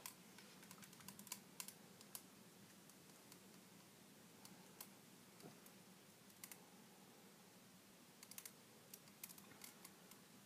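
Near silence with faint, scattered small clicks and ticks coming at irregular moments, and no thunder.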